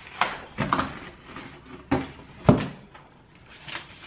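Paper and plastic packaging rustling and crinkling in short bursts as items are handled and pulled out of a package, with a sharp thump about two and a half seconds in, the loudest sound.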